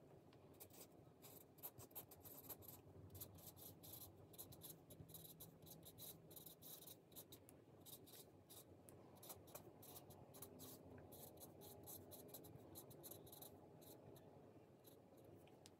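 Dry-erase marker writing on a tabletop dry-erase pad: faint, quick scratches and squeaks of the marker tip, stroke after stroke.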